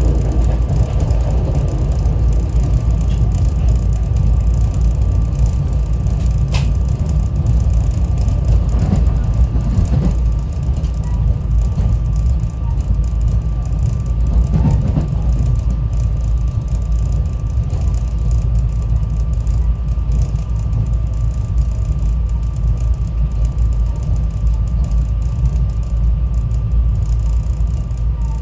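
SEPTA Regional Rail train heard from inside the passenger car while under way: a steady low rumble of the running gear on the track with a thin, constant tone above it. A single sharp click comes about six and a half seconds in.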